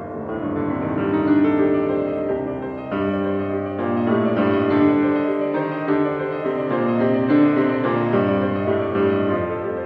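Yamaha grand piano played solo: dense, sustained chords over a low bass line, growing louder over the first second or so, with a brief dip about three seconds in.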